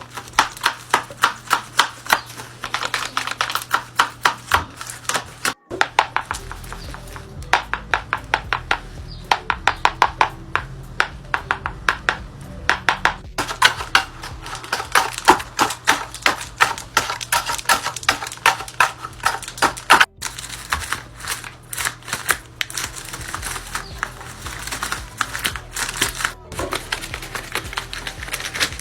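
Folded paper dragon puppets snapping their jaws shut over and over: rapid, irregular paper clacking, several snaps a second, in short runs broken by brief gaps.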